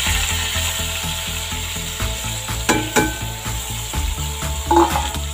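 Sliced onion sizzling in hot coconut oil with mustard seeds in a pot, a steady frying hiss, with two sharp knocks a little before halfway through.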